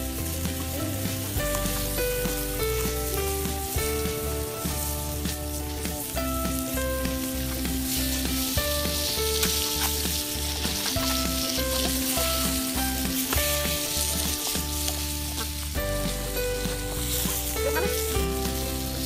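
Fish sizzling on a sheet of corrugated metal over a wood fire, the hiss swelling in the middle, under background music with a plodding, stepped bass line.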